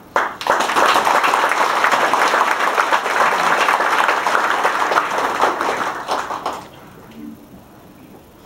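Audience applauding. The clapping starts just after the beginning and dies away about six and a half seconds in.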